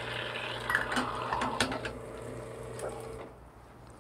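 Lelit Bianca espresso machine's rotary pump running steadily, pushing hot water through the group to heat the portafilter, with a few light metal clicks; the pump stops a little over three seconds in.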